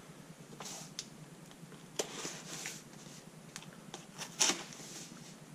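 Cardboard boxes being handled and packing tape on a box being slit with a knife blade: a few short scrapes and rustles and a light click, the loudest scrape about four and a half seconds in.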